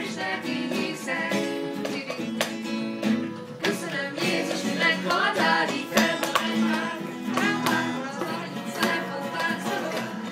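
Acoustic guitar strummed in chords, with voices singing along, more plainly in the second half.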